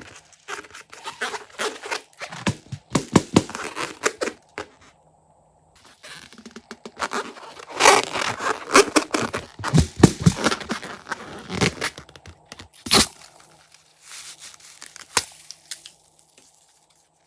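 Crunchy slime being squeezed and worked by hand, giving dense runs of crackles and small pops in bursts. There is a short pause about five seconds in and a sharper snap near the thirteen-second mark.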